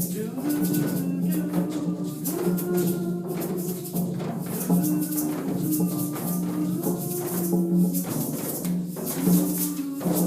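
A group drum circle playing: shakers and hand percussion keep a steady rhythm under a slow melody of long held notes that step from one pitch to the next.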